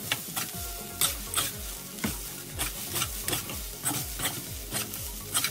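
Metal spatula scraping and tossing fried rice in a steel wok over high heat, the rice sizzling, with a sharp scrape about two to three times a second.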